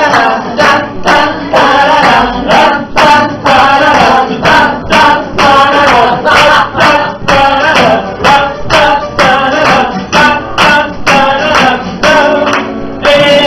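Live song: a voice singing over a strummed guitar, with a sharp percussive beat about twice a second; the beat stops near the end as a note is held.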